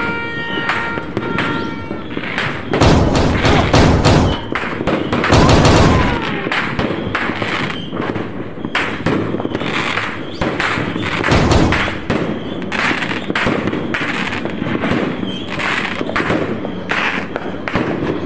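Many fireworks going off in quick succession: a dense, loud run of bangs and crackles, with heavier volleys of booms about three seconds, five seconds and eleven seconds in.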